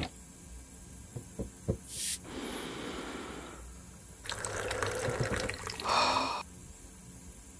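Single-serve pod coffee maker brewing into a mug: hissing and gurgling in two spells, ending in a short, harsher sputter near the end. A few light clicks come just before the brewing.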